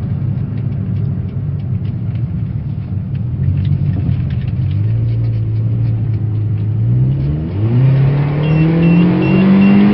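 Toyota Vios's 1NZ-FE four-cylinder engine accelerating hard after an ECU remap. The engine note holds steady, then climbs in pitch, drops at a gear change about seven and a half seconds in, and climbs again to the end.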